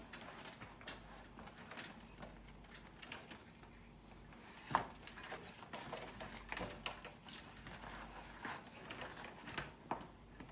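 Scattered, irregular light clicks and taps of hands working on the opened air conditioner unit, with one louder knock about five seconds in.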